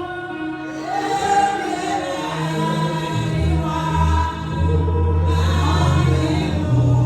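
Choir singing a gospel worship song with music, with deep low notes joining about three seconds in.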